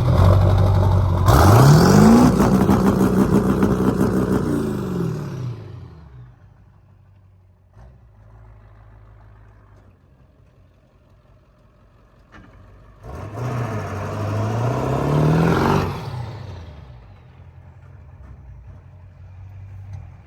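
A vehicle's engine revved hard under full acceleration, rising in pitch and fading away over the first few seconds, then a second hard acceleration about 13 seconds in; the launches are hard enough to tear up the grass.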